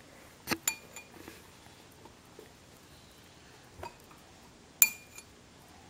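Metal spoon clinking against a ceramic cereal bowl: a few sharp clinks with a short metallic ring. Two come close together about half a second in, and the loudest comes near the end.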